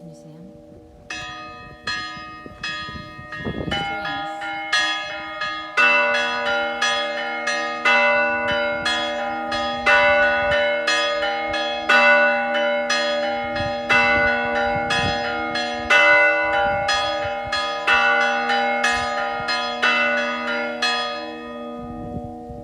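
Church bells hand-rung by pulling strings, several bells of different pitches struck in a quick, rhythmic tune. A deeper bell joins about six seconds in and sounds a heavy stroke every two seconds. The ringing eases off near the end.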